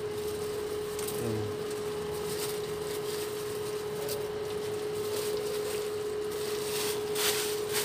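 Induction cooktop giving a steady hum under a nonstick frying pan, with a few soft ticks and rustles as a handful of leaves is dropped into the pan.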